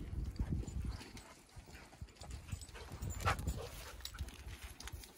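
Footsteps on coarse sand and granite rock, with a short scrape about three seconds in.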